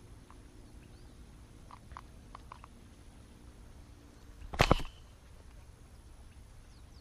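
A slingshot fishing arrow shot: one sudden, loud sharp snap and splash about four and a half seconds in, after a few faint ticks.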